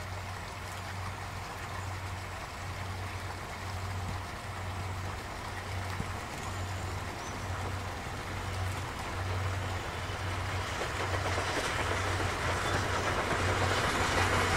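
Steam locomotive hauling passenger coaches, growing steadily louder as it approaches, with a low rhythmic beat about once a second under the running noise.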